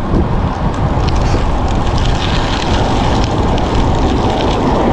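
Steady rushing wind noise buffeting the microphone of a camera riding on a moving bicycle.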